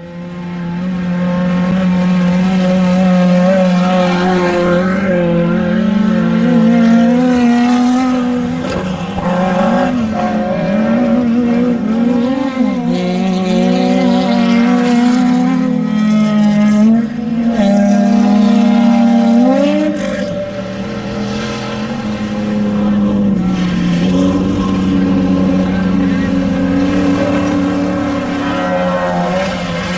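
Off-road desert race vehicle engines running hard. Their pitch rises and falls repeatedly as they rev and shift.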